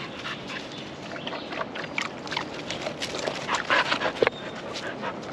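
English springer spaniel running through dry fallen leaves, its paws crunching and rustling the leaf litter in quick, irregular steps that grow louder as it comes close, loudest about four seconds in.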